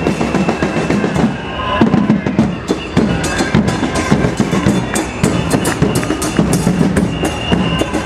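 Street percussion group drumming a quick, busy rhythm, with crowd noise underneath.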